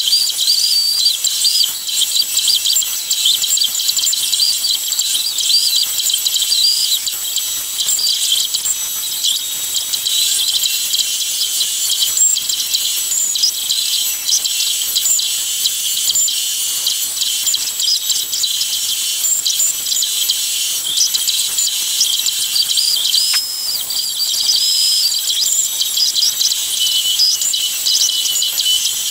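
Bandsaw with a narrow blade cutting out wooden letters: a continuous high-pitched hiss and whine with wavering, chirping squeals and almost no low hum.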